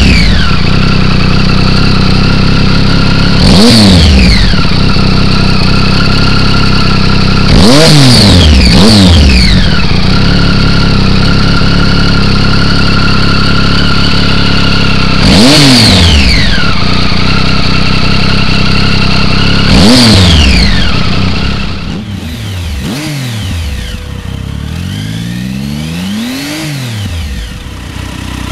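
Triumph Speed Triple inline three-cylinder engine idling through an Arrow aftermarket silencer, blipped five times; each rev shoots up and falls straight back, and two come in quick succession. About three quarters of the way through, a second Speed Triple on an Arrow silencer takes over, idling more quietly with a few more throttle blips.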